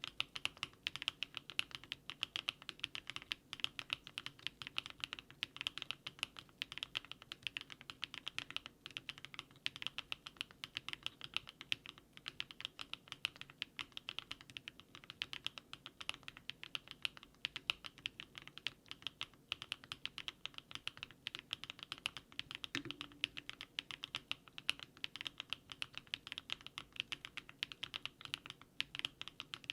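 Continuous typing on a DARING RUN DR-70F mechanical keyboard fitted with HMX 80Retros Film Joker switches: a rapid, steady run of keystroke clacks.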